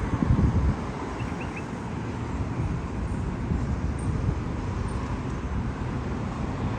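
Steady road traffic noise, with wind buffeting the microphone in the first second.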